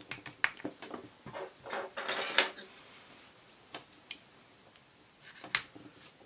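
Clicks and short clatters of a Glock pistol's polymer grip, backstrap and steel backstrap pin being handled as the standard backstrap is fitted and its pin worked into the frame. There is a denser rattle about two seconds in, and sharp single clicks near four and again near five and a half seconds.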